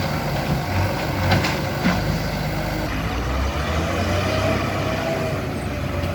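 Heavy diesel engine running steadily under load, with a couple of light knocks about a second and a half in.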